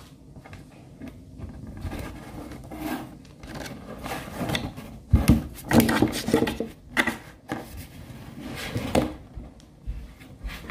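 Bernese mountain dog nosing and rubbing at a phone lying on a wooden table: irregular close rubbing, scraping and knocks against the wood, loudest through the middle stretch.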